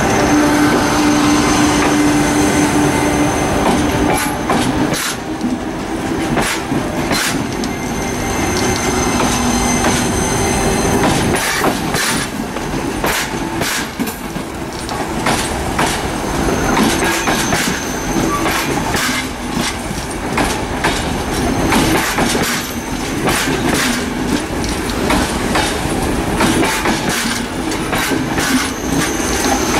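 Thello night train's passenger coaches rolling past behind a BB 36000 electric locomotive: a continuous rumble of wheels on rail with many sharp clacks over the rail joints. A steady tone sounds over it for the first few seconds.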